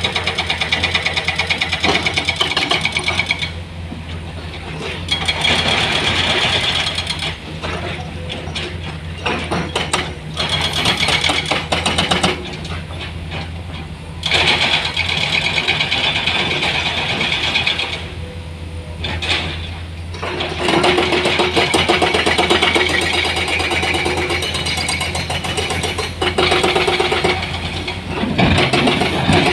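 Heavy machinery diesel engine running steadily, with louder stretches that rise and fall every few seconds.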